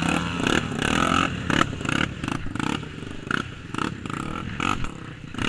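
Single-cylinder trail motorcycle engine running under throttle as the bike is pushed through a muddy hole, with many short knocks and clatter throughout.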